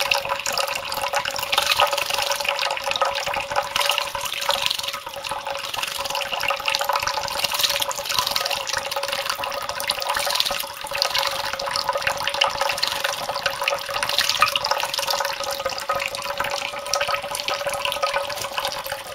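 A thin stream of tap water trickling into a ceramic bowl while a white Java sparrow splashes and flutters in it, bathing. A steady tone runs under the water noise.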